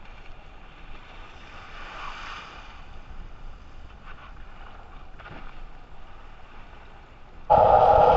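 Wind and water rushing as a kiteboard planes across the sea: a steady noise with a few faint knocks near the middle.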